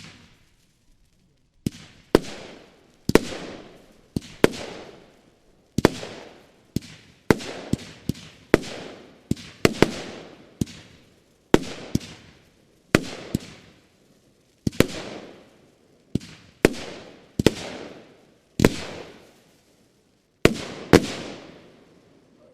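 Broeckhoff Headhunter 25 mm, 40-shot firework battery firing: a rapid, uneven series of sharp bangs, one every half second to second and a half, each with a fading tail. The first bang comes about a second and a half in.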